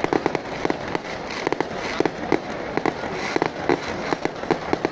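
Fireworks and firecrackers going off: rapid, irregular bangs, several a second, over a continuous crackle.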